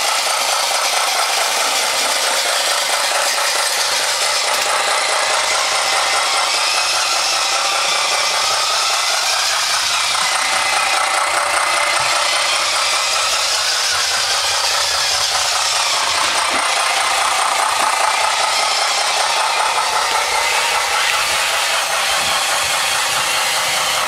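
Radio-controlled model truck running: a steady whine of small electric motors and gearing, wavering a little in pitch, with a constant rattle.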